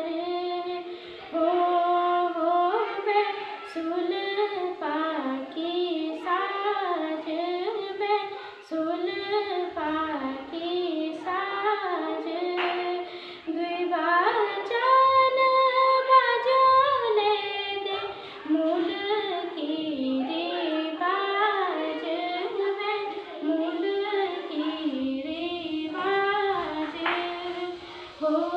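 A girl singing solo and unaccompanied, moving through held notes, with one long held note about halfway through.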